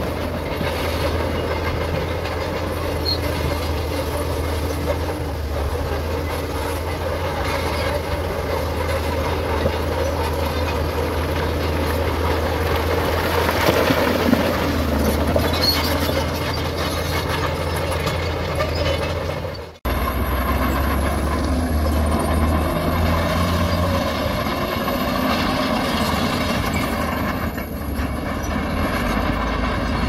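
Shantui crawler bulldozer's diesel engine running steadily under load while it pushes rock. The sound cuts out for an instant about twenty seconds in.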